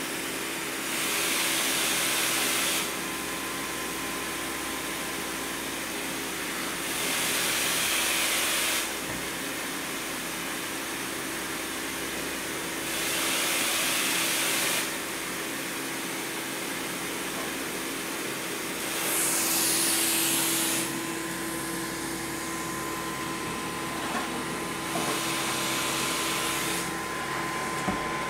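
Healthdyne Quantum PSV pressure-support ventilator running: a steady blower hum with a rush of air about every six seconds, each lasting about two seconds, as it delivers breaths against a partly taped-over outlet that stands in for a patient. A short knock near the end as the unit is handled.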